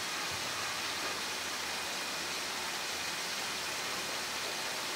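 Steady rushing noise, like running or falling water, with no distinct knocks or calls.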